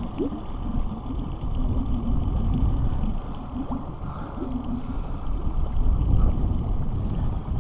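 Wind rumbling on the camera microphone over a small boat on choppy open water, with water lapping at the jon boat's hull.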